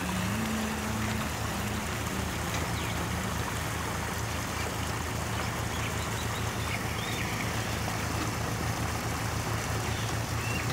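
A steady low engine hum with a constant rushing noise behind it; a higher hum fades out in the first few seconds.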